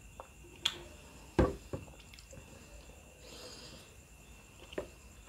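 Close-up eating-show mouth sounds after a drink of water: a few sharp lip-smack clicks and one dull thump about a second and a half in. Near the end comes a soft rustle as fingers gather rice from the plate.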